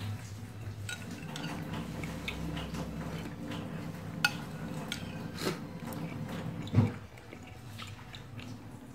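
Metal spoon scraping and clinking against a glass food container while scooping cilok balls out of broth, with two sharper clinks, the second and loudest about seven seconds in. A low steady hum runs underneath until about then.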